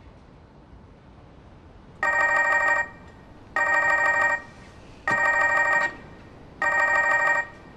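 Mobile phone ringing: four trilling electronic rings, each under a second long, about a second and a half apart.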